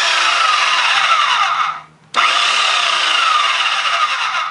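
Portable two-speed bandsaw motor and blade running, switched off briefly just under two seconds in and started again. Its whine drops in pitch during each run.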